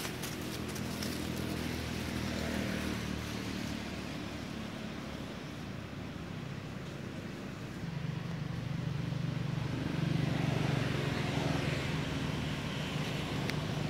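A motor vehicle engine running with a steady low hum, growing louder about two thirds of the way through.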